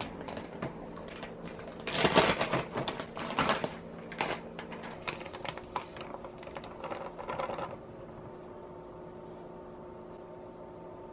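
Bread flour poured from a paper bag into a glass bowl: a crackling rustle of the bag and the flour's soft hiss, starting about two seconds in and stopping a few seconds before the end. A faint steady hum remains after it stops.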